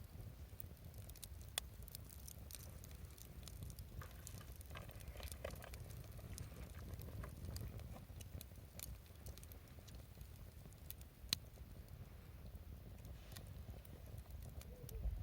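Wood bonfire crackling faintly, with scattered small snaps and two sharper pops, over a steady low rumble.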